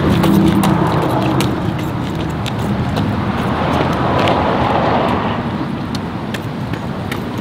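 Road traffic noise: a steady rush of passing vehicles that swells about four seconds in as a car goes by.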